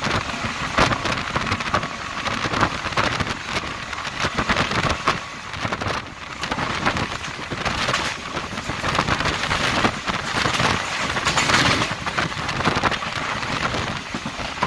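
DEMU train running at speed: a dense, rattling rush of wheels on rail and wind noise that swells and fades, with no horn sounding.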